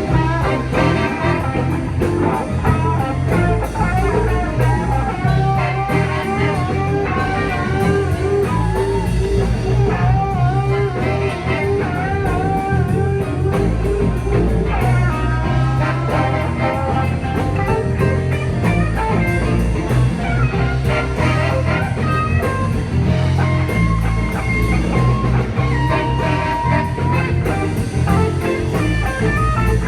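Blues-rock music: an electric guitar playing a lead line with wavering, bent notes over bass and a drum kit.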